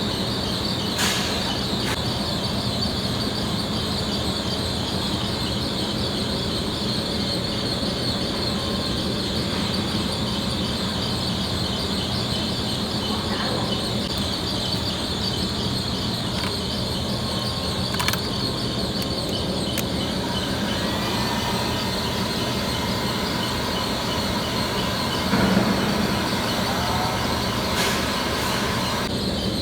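Steady background hiss and hum at an even level, with a few faint clicks and a brief louder knock near the end.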